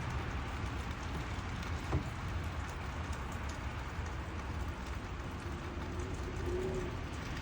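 Steady outdoor street noise in a snowstorm: a continuous low vehicle rumble under an even hiss, with one faint tick about two seconds in.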